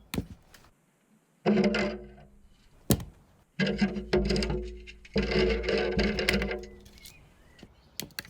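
Background music led by guitar, heard in short bursts broken by silent gaps, with a sharp click about three seconds in.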